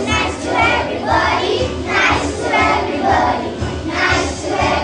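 A group of children singing a song together, over backing music with a steady low beat.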